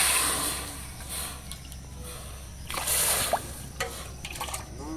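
Water poured from a steel bowl into an aluminium kadai, splashing loudly at the start and fading, with a second, shorter pour about three seconds in.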